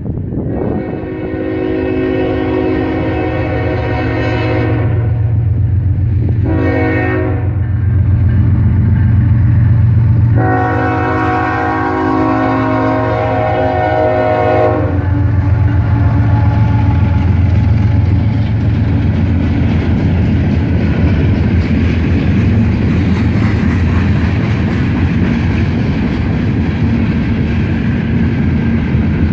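Diesel freight locomotive's air horn sounding three blasts at a grade crossing: long, short, then long. A heavy low rumble from the locomotive runs beneath the blasts. After the last blast, the freight cars roll past with steady wheel-on-rail noise and clickety-clack.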